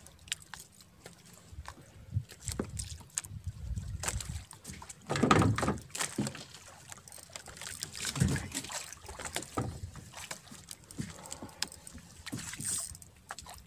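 Water sloshing against a small fishing boat's hull, with scattered knocks and clicks from gear and the deck. There is a louder burst of noise about five seconds in.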